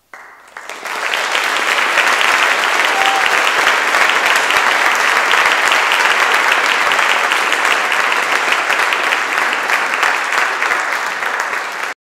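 Audience applauding: dense clapping that breaks out suddenly, swells within the first second and holds steady, easing slightly near the end.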